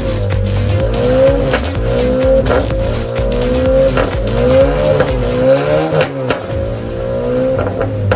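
Honda Accord engine being blipped repeatedly, the revs rising and falling about every second and a half. Sharp pops and bangs come from the exhaust as the revs drop: the overrun pop-and-bang set up by an ECU tune.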